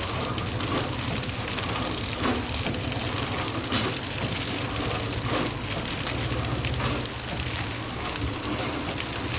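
Automatic film-wrapping packing machine running steadily as it wraps and heat-seals packs of clutch plates, a constant low hum under a dense, irregular crackle of clicks and rattles.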